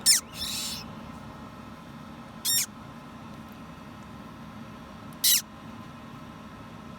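Hatching parrot chick peeping: three short, high-pitched squeaks that fall sharply in pitch, about two and a half seconds apart, with a brief hiss just after the first.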